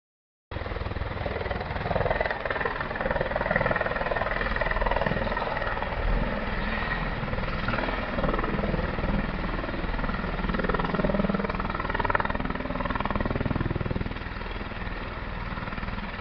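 Helicopter rotor and engine running close by as the helicopter hovers low over a helipad and settles onto it, a little quieter for the last couple of seconds.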